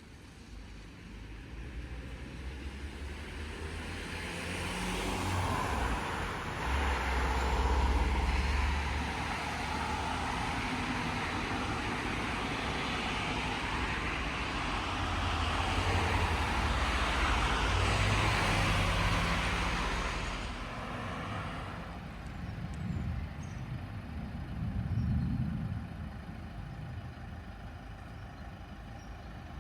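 A motor vehicle passes: its engine rumble and tyre noise build up, stay loud for more than ten seconds, then fade. A second, quieter vehicle sound swells and falls near the end.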